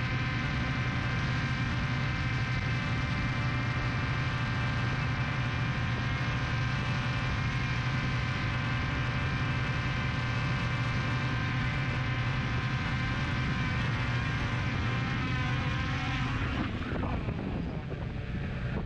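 Quadcopter drone's electric motors and propellers running with a steady, many-toned hum. Near the end the tones waver and break up as it comes down close to the grass, then fall away sharply.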